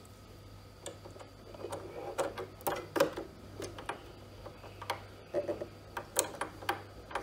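Small irregular metal clicks and taps of a sewing machine's bobbin case being fitted and pressed into place in the shuttle hook.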